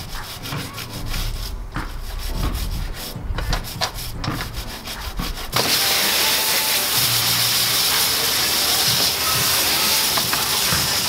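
A stiff brush scrubbing degreaser over an engine bay in rapid strokes. About halfway through, a garden hose spray nozzle comes on with a sudden, steady hiss of water rinsing the engine bay.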